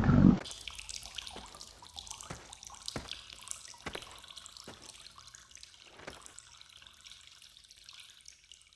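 Cartoon cave ambience: water dripping in faint, irregular drips, about one or two a second, over a light hiss. A loud sound from the cut before cuts off suddenly about half a second in.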